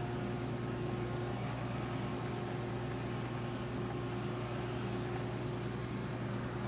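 Boat engine running steadily: a low hum with a few held tones above it and a wash of noise, unchanging throughout.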